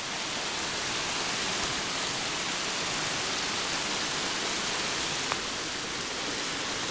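Brook in spate after heavy rain, its water rushing steadily and loud.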